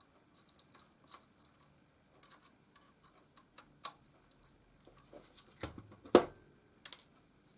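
Small irregular clicks and taps of a screwdriver undoing a tiny screw in a camcorder's plastic casing, with a few sharper clicks near the end.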